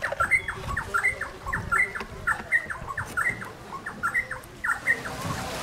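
A bird calling over and over: a short, falling note repeated about three times a second, stopping near the end.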